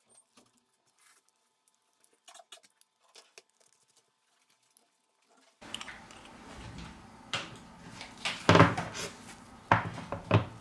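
Aluminium phone-repair clamps knocking and clicking as they are fitted onto the phone, with a few sharp metallic knocks in the second half, the loudest about eight and a half seconds in. The first half is nearly silent, with only faint small clicks.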